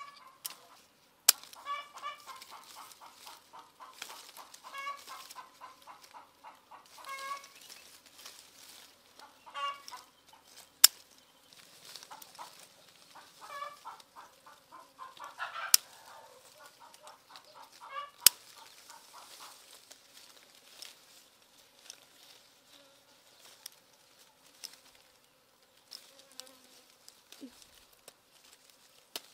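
Chickens clucking in short repeated runs, with four sharp snips of scissors cutting lime stems standing out as the loudest sounds.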